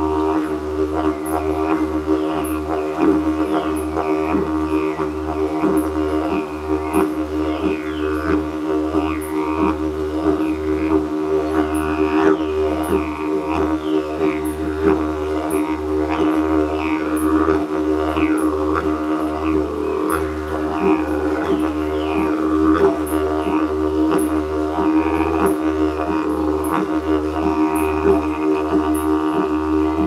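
Two wooden didgeridoos played together in a steady, unbroken low drone, with a regular rhythmic pulse and overtones that sweep up and down.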